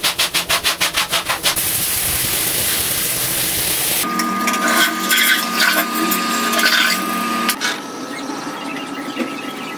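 Scrubbing of a tiled bathroom floor and tub by hand, in quick rhythmic strokes of about six a second at first, then a steady rubbing. From about four seconds in, a thin steady tone runs underneath.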